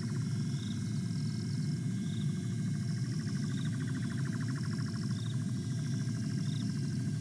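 Night bush chorus of insects and frogs: a steady high-pitched insect trill, a fast pulsing trill, and short chirps repeating every second or two, over a low steady hiss.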